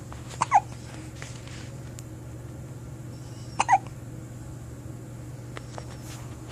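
Two hiccups about three seconds apart, each a quick double catch with a short squeaky voiced edge.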